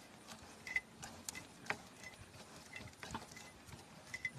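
Faint, irregular clicks and ticks from a jack handle turning the under-vehicle spare-tire winch to lower the spare tire.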